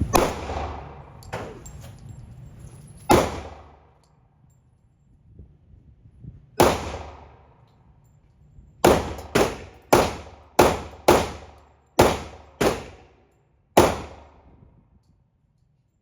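Handgun shots at an indoor range, each followed by a short echoing tail. Three single shots a few seconds apart are followed by a string of eight shots over about five seconds.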